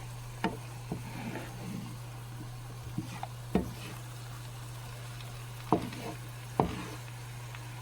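Food frying in a pan with a steady sizzle, over a low steady hum. A utensil knocks sharply against the pan about five times.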